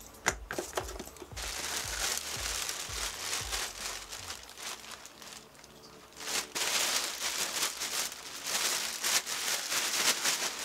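Packaging crinkling and rustling as a boxed airsoft rifle is unwrapped, in two long stretches with a short lull in the middle.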